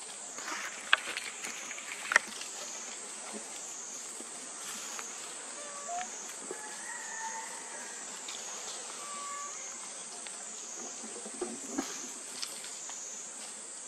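Outdoor insect chorus: a steady high-pitched drone that wavers slowly up and down in pitch. A few sharp clicks, like dry leaves being stepped on or handled, come in the first two seconds and again near the end.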